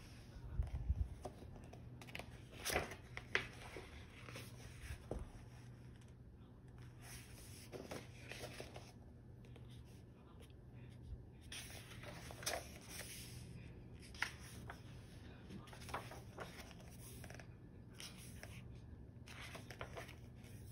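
Paper pages of a paperback photobook turned by hand: soft rustles and swishes, with a few sharper page flips scattered through, over a steady low hum.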